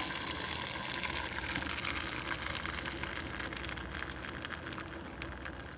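An egg frying in a hot skillet: steady sizzling with scattered crackles that slowly dies down.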